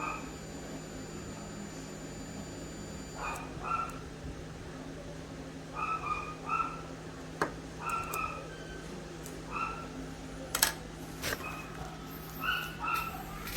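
A dog whimpering and yipping in short high cries, several clusters of them, with a few sharp clicks in between over a steady low hum.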